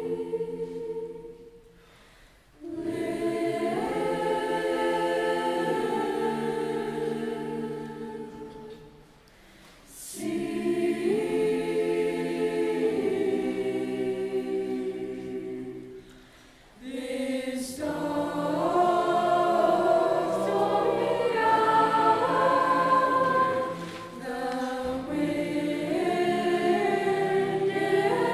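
Mixed-voice choir singing unaccompanied in sustained chords, in four phrases split by short breaks, the last phrase the fullest and loudest.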